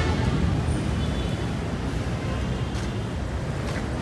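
Steady rumble of city street traffic, passing vehicles blending into a continuous low roar.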